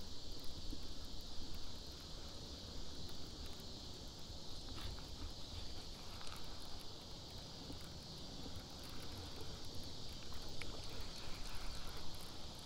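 Steady high drone of insects in the background, with a low rumble and a few faint clicks as a baitcasting reel and lure are handled.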